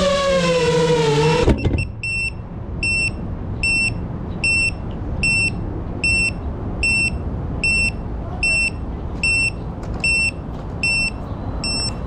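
FPV quadcopter's electric motors whining, wavering in pitch, then cutting off abruptly about a second and a half in as the drone lands and disarms. After that an electronic buzzer beeps steadily, one short high beep about every 0.8 s.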